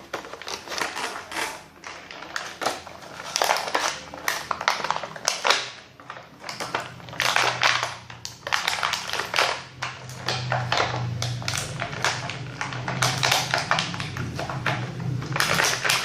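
Toy packaging being handled and opened by hand: irregular rustling, crinkling and tapping of plastic and cardboard.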